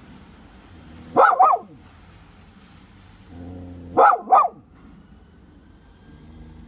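Border collie barking in two quick double barks, the first about a second in and the second about three seconds later, with low growling before the second pair.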